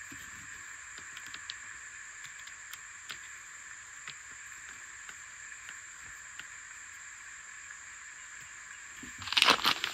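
Faint scattered clicks and taps from a small screwdriver working at the corner of an RV window-blind frame as its strings are tightened, over a steady high-pitched background buzz. Near the end a louder burst of knocking and rustling as the frame is handled.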